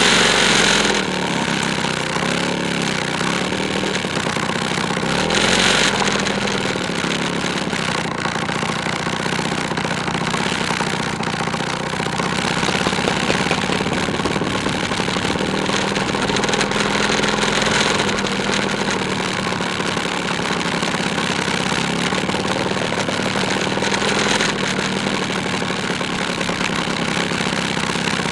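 A two-stroke scooter engine running at low road speed, its pitch wandering up and down as the throttle changes. Two short loud rushes of wind on the microphone come at the start and about six seconds in.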